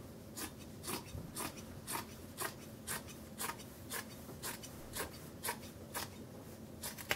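Fiskars Easy Action fabric scissors snipping through a thick terry-cloth hand towel, about two even cuts a second.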